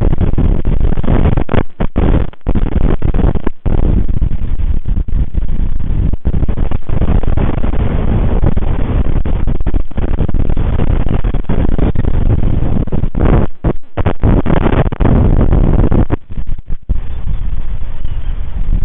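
Strong wind buffeting the nest livecam's microphone: a loud, constant rumbling rush, broken several times by brief, sudden dropouts.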